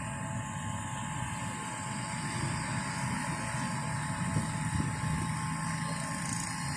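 Steady background noise of street traffic, with a low engine hum holding one pitch from about halfway through.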